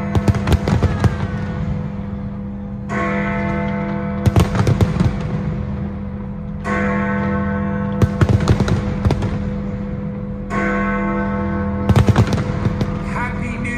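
Big Ben's hour bell striking midnight, a deep ringing stroke about every four seconds, three times, each stroke followed a second or so later by a cluster of fireworks bangs and crackles.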